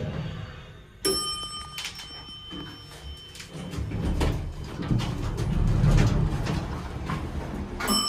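Heights elevator arrival chime: a single ding about a second in that rings and fades, followed by the car doors sliding open and footsteps as a rider steps out. A second chime sounds near the end.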